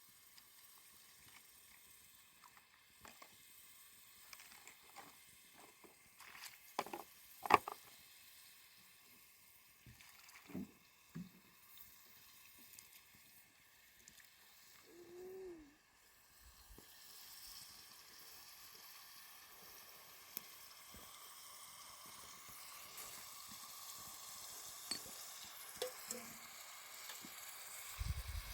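Faint sizzling hiss that slowly grows louder through the second half, with scattered light clicks and knocks and a short pitched sound about halfway.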